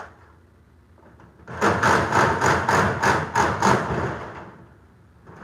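A rapid run of about eight metallic bangs and rattles on a hollow steel garage door section, about three a second, lasting a couple of seconds.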